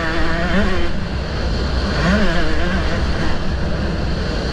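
Motocross bike engine running at speed on the track, its pitch rising and falling a few times as the throttle opens and closes, over a steady low wind rumble on the onboard microphone.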